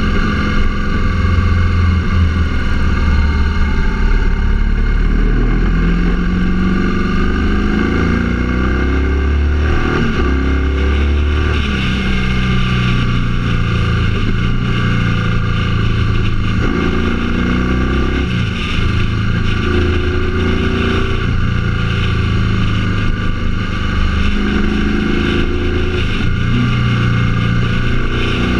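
Vehicle engine running under way, its pitch rising and falling in steps as it changes gear and speed, over steady wind and road noise.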